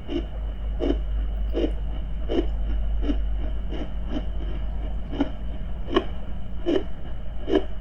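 Human heartbeat thumping steadily at about eighty beats a minute, with fainter pulses between some beats. Underneath is a low steady underwater-style rumble and a thin steady high tone.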